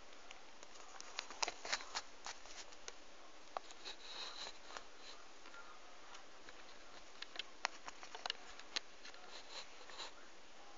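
Faint, irregular small clicks and ticks of rubber loom bands being stretched and snapped onto the plastic pegs of a loom.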